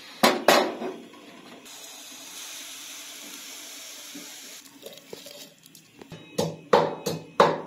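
A wok is set down on a gas stove's metal grate with two clanks, then cooking oil is poured into it from a plastic bottle with a steady splashing hiss for about four seconds. Near the end a wooden pestle starts pounding ginger, garlic and green chillies in a wooden mortar, about three strikes a second.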